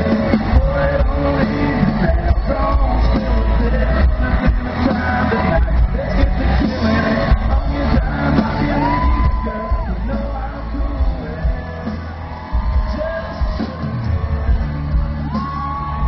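Live country band playing loud through a concert PA, with a male lead vocalist singing into a handheld microphone over a heavy bass.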